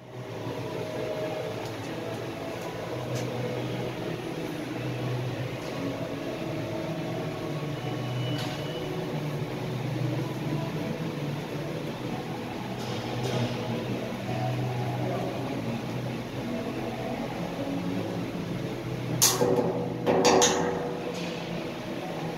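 Electric arc welding inside a steel tank: a steady buzzing hum. A few sharp, louder bursts come near the end.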